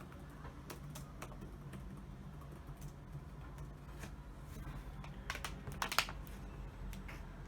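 Typing on a computer keyboard: irregular key clicks, with a quick run of louder strokes a little before six seconds in, over a low steady hum.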